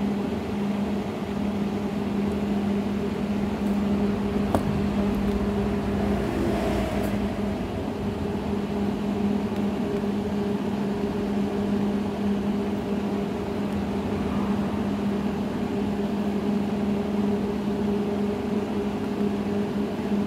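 Steady electrical hum with a noisy whirr under it, unchanging throughout, and a single faint click about four and a half seconds in.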